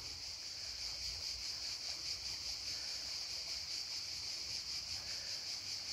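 Steady high-pitched chorus of insects, typical of crickets, over the low, even rush of a mountain river.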